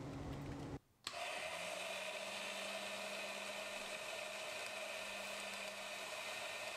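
A drill press motor runs for under a second and stops abruptly. About a second in, a Harbor Freight saw mounted upside down as a table saw starts running with a steady motor hum.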